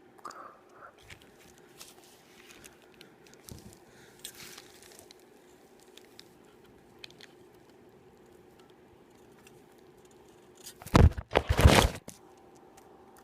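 Aluminium foil crinkling and tearing, with small clicks and crackles of handling, then a loud rustling, crunching burst lasting about a second, near the end.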